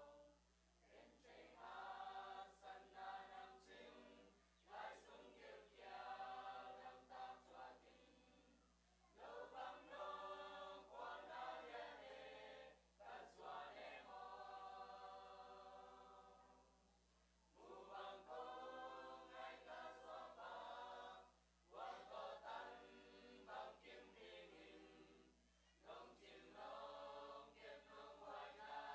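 Mixed youth choir of boys and girls singing together, faintly recorded, in phrases a few seconds long with short breaks between them.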